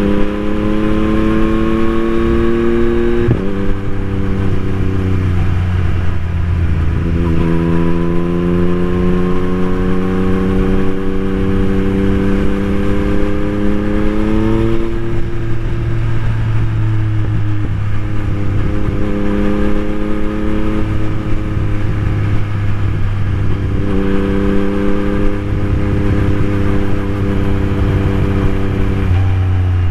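2021 Yamaha MT-09's 890 cc inline-three running through an un-baffled Akrapovic carbon full-system exhaust, riding in traffic. The engine note climbs slowly under gentle throttle and drops sharply at a gear change a few seconds in and again about halfway. It then holds steady, and the pitch falls near the end as the bike slows.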